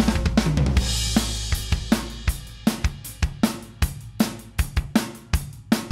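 Rock band's drum kit opening a song: kick, snare and hi-hat in a busy beat, with a cymbal crash and a low sustained bass note fading out in the first second or so.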